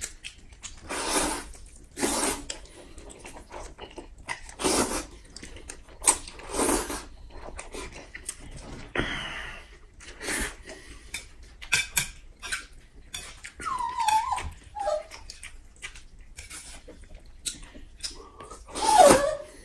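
Close-up eating sounds: irregular wet chewing, smacking and noodle-slurping bursts with small clicks, as grilled skewers and spaghetti are eaten. A short, wavering whine-like vocal sound comes about two-thirds of the way in, and a louder one falling in pitch comes near the end.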